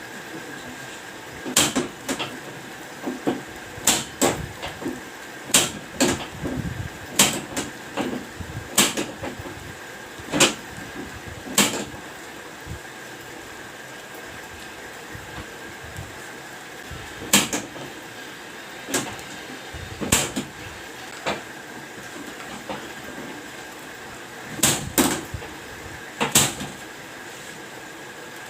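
Sharp knocks and clicks from a chiropractic adjustment of the lower back, coming in irregular clusters: a busy run in the first twelve seconds, then a few near the middle and a pair near the end. A steady background hum lies under them.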